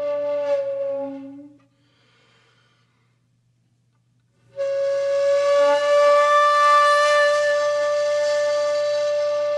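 Solo shakuhachi flute music: a long held note fades out about a second and a half in, followed by a couple of seconds of near silence, then another long note begins a little before halfway and is held steadily.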